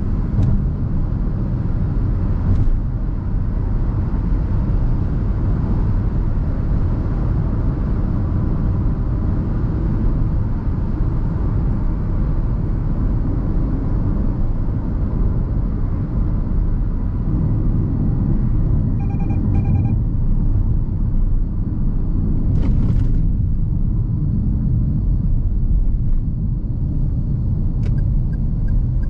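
Steady low rumble of road, tyre and engine noise inside the cabin of a 2021 Perodua Ativa 1.0 Turbo, its turbocharged three-cylinder running at cruising speed. About two-thirds of the way through, a short run of electronic beeps sounds, and light regular ticking starts near the end.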